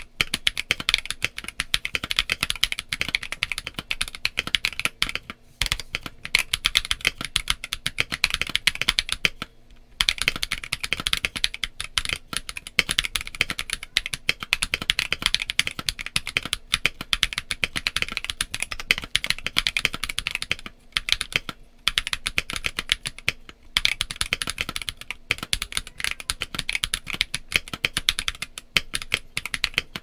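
Continuous typing on a Keychron Q1 V2 mechanical keyboard with an FR4 plate and PE foam, Akko Lavender Purple tactile switches and doubleshot PBT Cherry-profile keycaps. A dense run of keystrokes broken by a few brief pauses.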